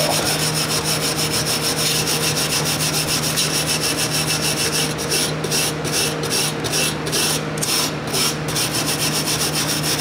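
A small stainless-steel wire brush scrubs with light pressure up and down the aluminium fins of a Haier window air conditioner's condenser coil, making a continuous scraping rasp as it works packed dirt out from between the fins. About halfway through, the scrubbing breaks into separate quick strokes, roughly three a second.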